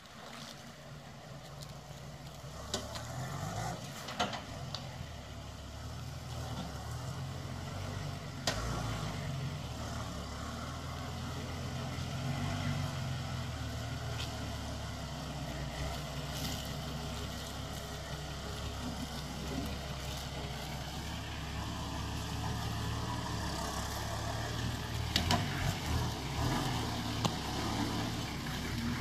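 Nissan Patrol 4WD ute's engine running at low revs as it crawls over rough, rutted ground, growing gradually louder as it nears. A few short knocks and clunks sound over it.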